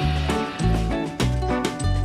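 Background music with a steady beat: a bass line pulsing about twice a second under percussion and sustained instrument notes.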